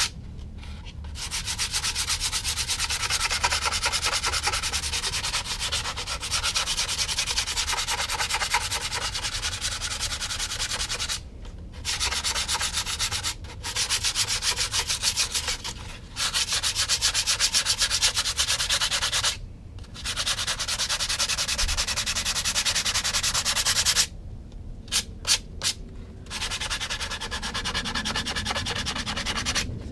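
Sandpaper rubbed by hand in quick, light back-and-forth strokes over spackle filler at the seam between a plastic cowling and a balsa model fuselage, the strokes stopping briefly a few times.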